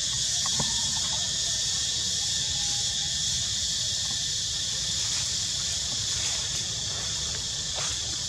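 Steady, high-pitched insect chorus droning without a break, with a low steady rumble underneath and a few faint ticks.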